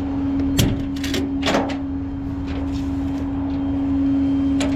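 A steady hum at one pitch under several sharp clunks and clatters, a cluster in the first two seconds and one more near the end.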